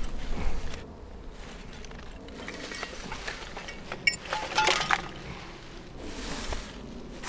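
Dumped litter being handled and gathered up by hand: light clinks and rustling, the loudest burst of clinking about four and a half seconds in.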